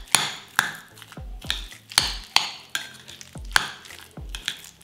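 Metal spoon stirring a thick mayonnaise and cream-cheese spread with chopped green onion and dill in a glass bowl, the spoon clicking against the glass about twice a second.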